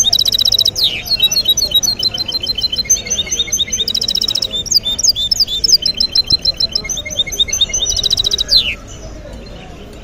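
Caged hybrid finch (mule) singing a long, unbroken song of fast trills and chirps. It ends with a falling note about eight and a half seconds in. The song is one the listener finds free of faults.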